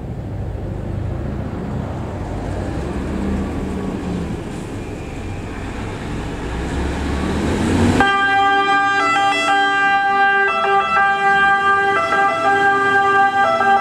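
Mercedes-Benz Actros fire engine's diesel engine rumbling and building as the truck pulls out. About eight seconds in its siren switches on suddenly and sounds loudly, a set of steady notes that shifts pitch now and then.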